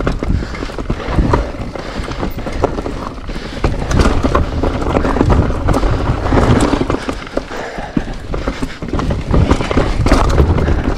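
Electric mountain bike clattering over a rough, rocky trail: frame, chain and wheels rattling and knocking on the bumps in quick irregular succession, over a heavy low rumble of wind on the helmet-camera microphone.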